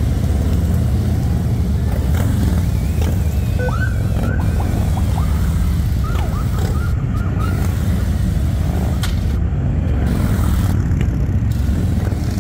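Several police Harley-Davidson motorcycles with V-twin engines running steadily as they ride slowly past in procession. A few short high chirps sound over the engines about four to seven seconds in.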